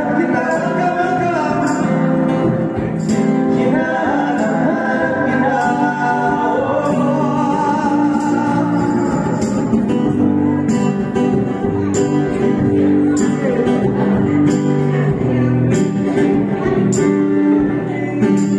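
Live band playing a song: a singer's voice over strummed acoustic guitar, with a steady beat of sharp percussion hits.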